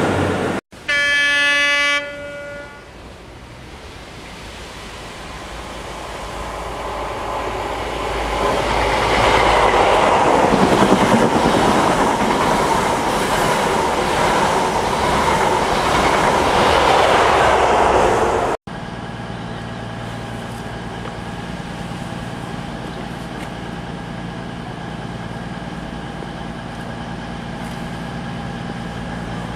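A short train horn blast, then a First Great Western HST passing through the station at speed: a rushing rail and wheel noise that builds up and stays loud for several seconds. After a cut, a CrossCountry Voyager diesel unit stands at the platform with its underfloor engines idling in a steady hum.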